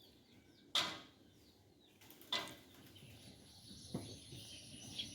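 A few sharp knocks or clacks: the loudest about a second in, another a couple of seconds later, then two weaker ones, over faint bird chirps.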